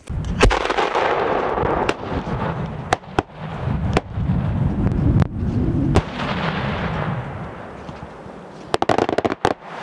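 8-inch aerial display shell fired from a mortar: a deep launch thump just after the start, then a hiss with several sharp bangs while it climbs and breaks. Near the end comes a quick run of sharp clicks.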